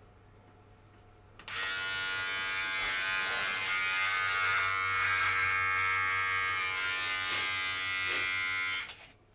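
Electric shaver buzzing: it switches on about one and a half seconds in, runs steadily, and cuts off shortly before the end.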